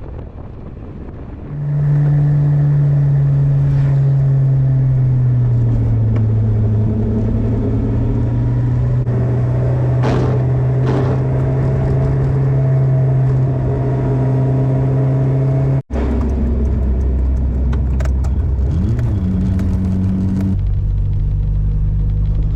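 Motor vehicle driving: a steady engine hum that steps down in pitch a few times, with an abrupt cut about 16 seconds in.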